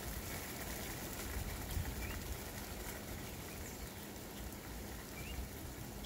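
Steady rain falling on the street, lawns and trees, with a bird giving two short rising chirps, about two seconds in and again near the end.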